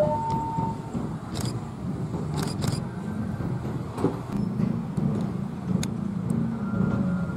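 Diesel locomotive's horn holding a single tone that cuts off within the first second. The engine then runs with a steady low rumble as the locomotive moves slowly, with a few short clicks.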